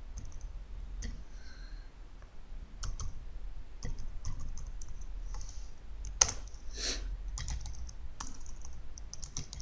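Computer keyboard being typed on: irregular runs of key presses, with one sharper keystroke about six seconds in.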